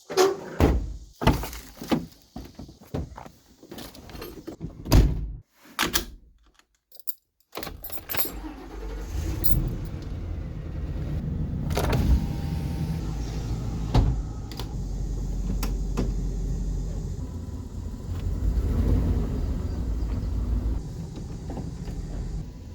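Keys jangling with several clicks and clunks for the first few seconds, then a car running and driving, a steady low engine and road rumble.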